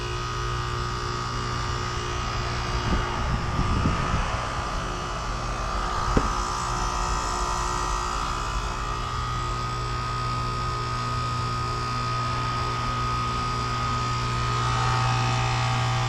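2015 Goodman GSZ14 heat pump outdoor unit running in its defrost cycle: a steady compressor hum with a thin whine above it. A brief rush of noise comes about three seconds in, and a single sharp click about six seconds in.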